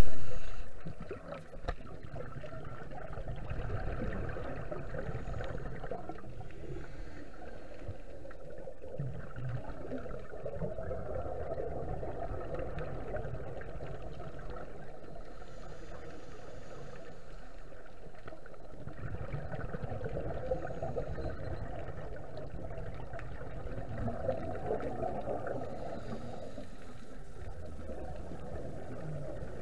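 Underwater ambience with scuba divers' exhaled regulator bubbles gurgling in swells every few seconds. A loud burst at the very start fades within about a second and a half.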